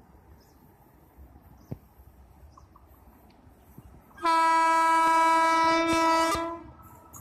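Express train's locomotive horn sounding one long, loud blast of about two and a half seconds on a single steady note, starting about four seconds in. Near the end the low rumble of the oncoming train begins to build.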